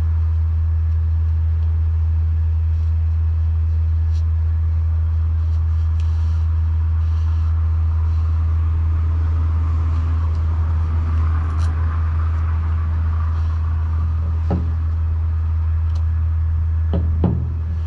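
Street ambience with a loud, steady low rumble. A car passes at about ten to fourteen seconds, and a few faint clicks fall here and there.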